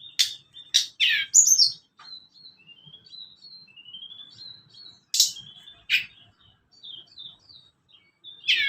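Tledekan gunung songbird calling: a few loud, sharp descending call notes, with thin rising whistled phrases between them.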